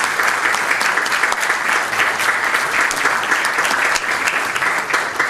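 Audience applauding, many hands clapping steadily, then stopping at the very end.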